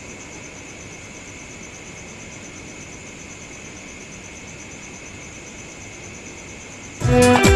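Steady chirring of crickets with a fast, fine pulse, as in a night ambience. About seven seconds in, music cuts in loudly.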